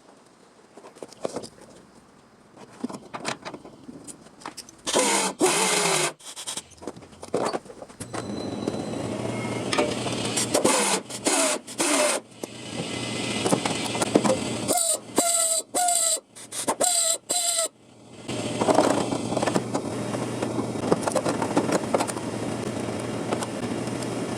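Electric power tool working sheet steel, switched on and off in short bursts with its motor pitch sliding as it spins up and down, then running steadily for the last several seconds.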